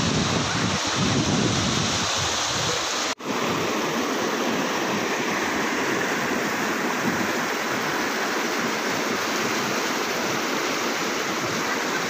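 Steady rush of a rocky mountain stream cascading over boulders, with a waterfall pouring into it. The sound cuts out for an instant about three seconds in, then runs on unchanged.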